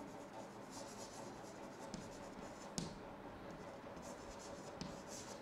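Chalk writing on a chalkboard: faint scratching strokes with a few light taps, the sharpest about three seconds in.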